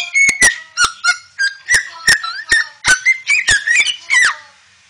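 White cockatoo giving a rapid series of about a dozen short whistle-like calls, each starting with a sharp click and gliding up or down in pitch. The calls stop shortly before the end.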